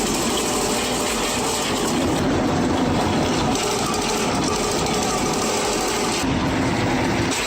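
A wood-processing machine running under load, a steady, dense mechanical din of engine and moving parts; the character shifts slightly a couple of times.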